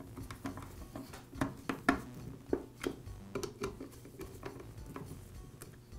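Screwdriver tightening the ignition coil mounting screws on a Poulan chainsaw engine: irregular light metallic clicks and taps as the tip works in the screw heads.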